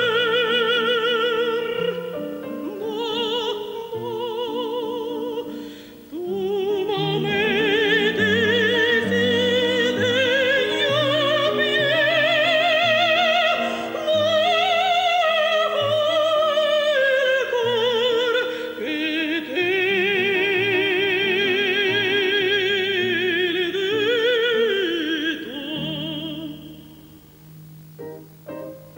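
Female operatic voice singing with wide vibrato over piano accompaniment. The voice breaks off for a breath about six seconds in and ends its phrase near the end, leaving the piano alone.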